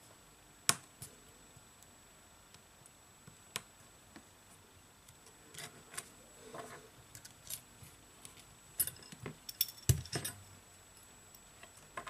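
Irregular small clicks and taps of hand tools and parts on an iPhone 7 being reassembled: a sharp click about a second in, scattered light taps, then a quick cluster of louder clicks toward the end.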